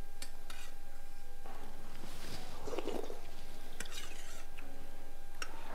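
A metal spoon clinking lightly against a bowl and plate a few times while someone eats, over a steady faint hum.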